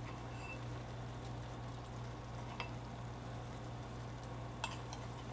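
Minced, marinated beef-rib meat sizzling softly and steadily in a frying pan over high heat, as the leftover marinade sauce is stirred in with a wooden spoon. A couple of light clicks come from the spoon.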